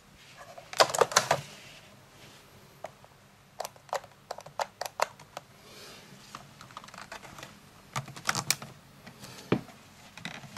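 Sharp plastic clicks and rattles from an S&T Tavor TAR-21 airsoft electric rifle being handled by a gloved hand, parts of its body being worked. A quick run of loud clicks comes about a second in, with scattered clicks after and another run about eight seconds in.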